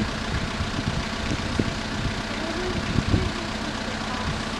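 A bus's diesel engine idling with a steady low hum.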